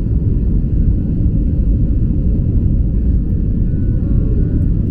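Airliner cabin noise heard from a passenger seat: a loud, steady low rumble of the engines and airframe.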